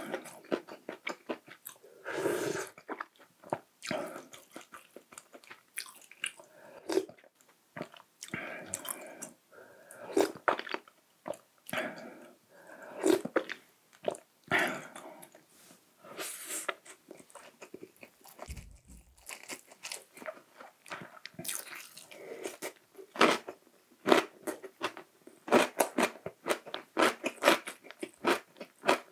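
A person eating close to the microphone: irregular bites and wet chewing with crisp crunches, settling into a quicker, steadier run of chewing near the end.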